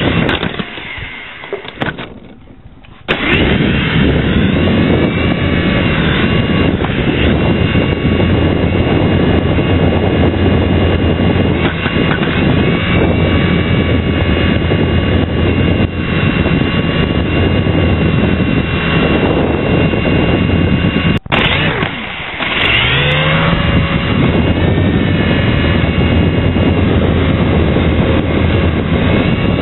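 Small electric motors and rotor blades of a mini RC helicopter running, picked up close by a keyfob camera mounted on it: a steady whir with high whining tones. The motors drop away about half a second in and come back suddenly about three seconds in; after a brief break about two-thirds of the way through, the pitch rises as they spin up again.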